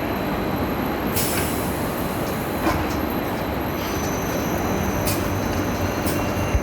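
Pipe-cutting machine running with a steady mechanical noise, with a few sharp clicks through it.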